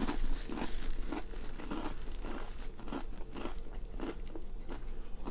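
A person chewing crunchy food close to the microphone, with a steady rhythm of crunching chews about two a second.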